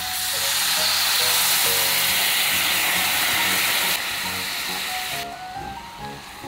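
Hot cooking oil sizzling as food fries in it, a loud steady hiss that drops about four seconds in and cuts off abruptly a second later, over light background music.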